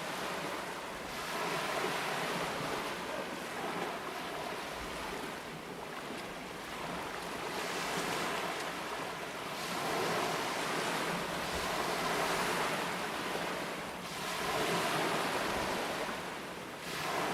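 Small lake waves washing onto the shore, swelling and easing every few seconds.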